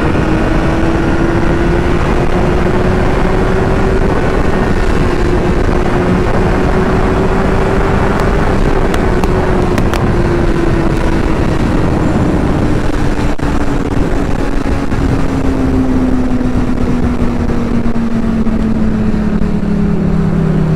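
Honda CBR600RR inline-four engine held wide open in a high gear at over 170 km/h, its pitch climbing slowly for about eight seconds and then falling steadily as the rider backs off for a slight bend, all under heavy wind rush on the microphone.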